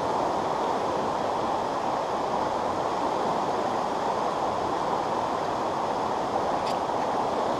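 Steady rush of a rocky stream running through riffles and over stones.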